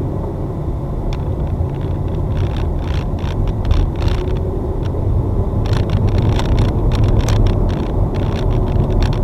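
Turbo V8 Holden ute on the move, a steady low engine and road rumble with frequent short clicks and rattles over it.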